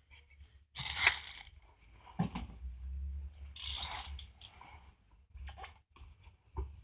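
Handling noise as a BMX bike is turned around: irregular rustling and scraping with a few light knocks, loudest about a second in and again near four seconds.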